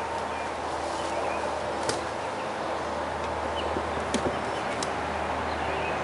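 A few sharp wooden knocks as a beehive's wooden outer cover is set on and settled onto the hive boxes, heard over a steady outdoor hiss and low hum.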